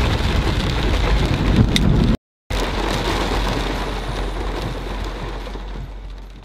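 Heavy rain falling on window glass, with a steady low rumble beneath it. The sound cuts out briefly about two seconds in, then resumes and fades away near the end.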